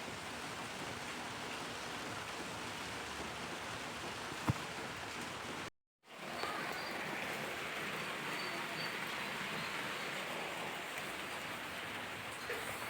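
Steady rain falling, with a single sharp drop-like tap about four and a half seconds in. About six seconds in the sound cuts out completely for a split second, then the rain carries on.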